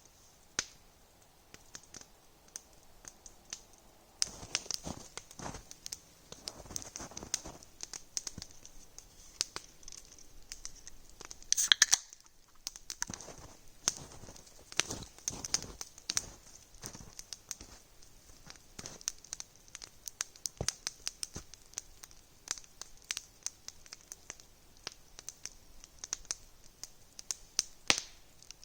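Wood campfire crackling, with many sharp irregular pops and snaps and one louder burst of crackle near the middle.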